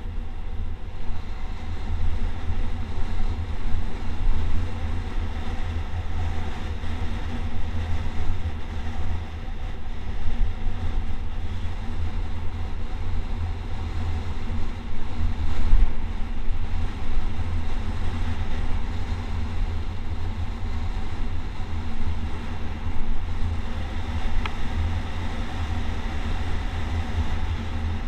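Wind buffeting the microphone of a camera moving downhill on a road, a continuous uneven rumble with rolling road noise beneath it.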